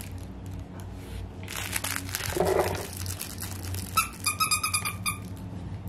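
Rustling and crinkling as a Yorkie puppy moves about close to the microphone, followed about four seconds in by a quick run of short high-pitched chirps, around eight or nine a second, for about a second.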